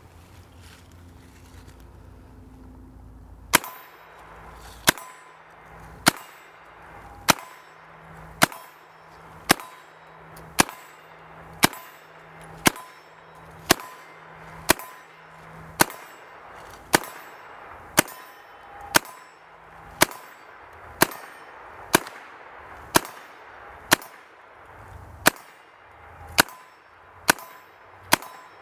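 Calico M900 9mm semi-automatic carbine fired in a steady string, about two dozen shots roughly a second apart, starting a few seconds in and coming a little faster near the end. Each shot is followed by a short ring, typical of hits on a steel target.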